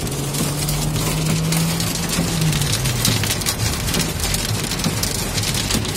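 Heavy rain drumming on a van's roof and windshield, heard from inside the cabin as a dense patter of many small hits. A low engine hum runs underneath and drops in pitch about two and a half seconds in.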